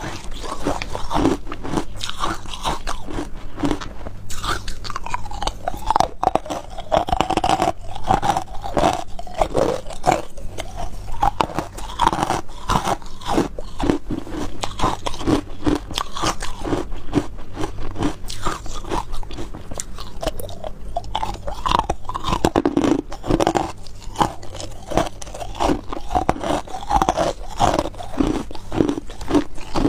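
A person biting and chewing pieces of white ice in the mouth: a close, continuous run of crisp crunches, several a second.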